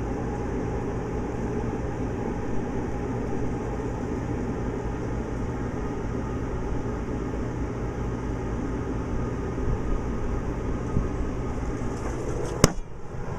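Steady machine hum with a low drone, and one sharp click near the end.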